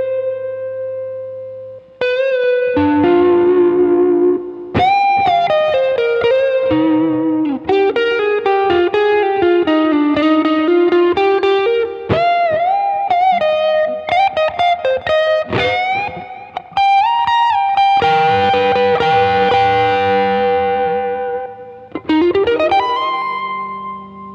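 Electric guitar lead played alone: a clean direct recording reamped through a guitar amplifier and effects. Single-note melodic lines with string bends and long held notes, ending with a slide up to a final held note.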